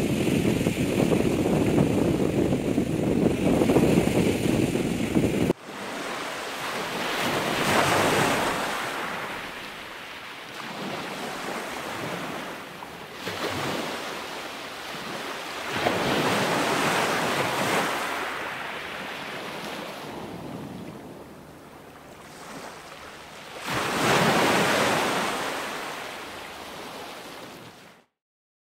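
Sea surf breaking against a shore of rock boulders: waves crash and wash back, swelling in loud surges about every eight seconds. For the first five seconds wind buffeting the microphone makes a heavy low rumble, which cuts off suddenly.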